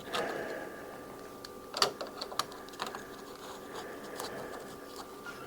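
Scattered small metallic clicks and taps of deadbolt lock hardware being handled and turned. The sharpest click comes a little before the middle, with a few lighter ones after it.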